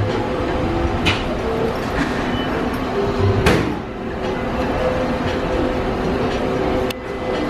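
Steady low rumble of a cruise ship's interior ambience, with a few faint clicks.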